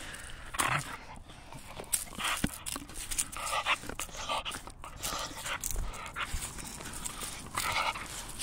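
Dog panting with a wooden stick gripped in its mouth: short irregular breaths, with scattered clicks and crunches as its teeth work on the wood.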